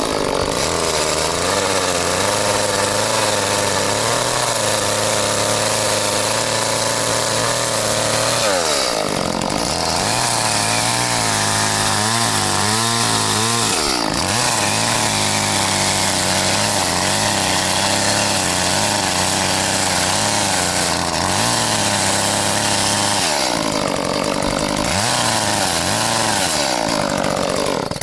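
ECHO two-stroke chainsaw running, its engine pitch mostly steady but swooping up and down several times in the middle and again near the end, then stopping.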